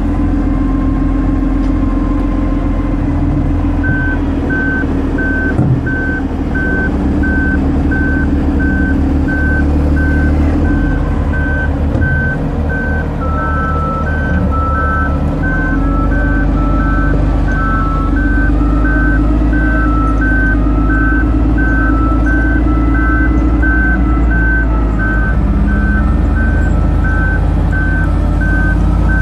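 Diesel engines of heavy wheel loaders running steadily while they work to free a loader stuck in deep snow. From about four seconds in, a reversing alarm beeps in a steady repeated rhythm, and a second, slightly lower tone joins about halfway through.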